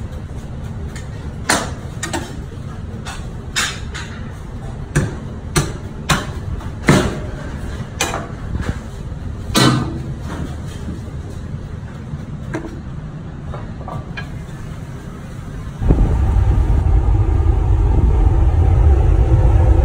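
Knife trimming fat from a large raw beef rib section on a plastic cutting board: scattered sharp knocks and cuts over a steady low background drone. About 16 seconds in the sound changes abruptly to a much louder steady low rumble.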